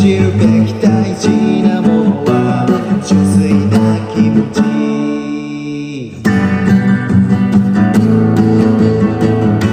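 Guitar strummed in a steady rhythm as an instrumental break in a cover of a punk-rock song. About halfway through, one chord is left ringing and fades for about a second and a half before the strumming starts again.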